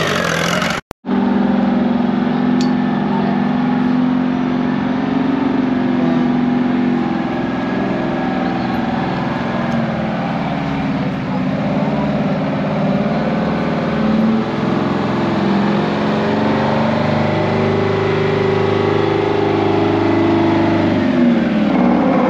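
Diesel semi truck engine running at low revs as the tractor-trailer rolls slowly past, its pitch rising and falling in the second half.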